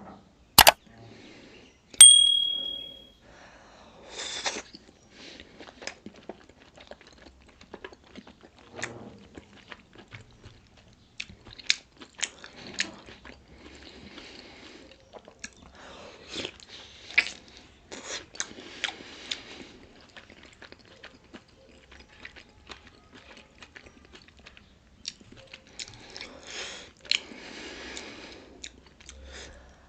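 Close-up eating sounds of a person chewing pork momos: wet chewing and mouth noises with many small clicks, the bursts coming and going. About two seconds in there is a sharp clink that rings briefly.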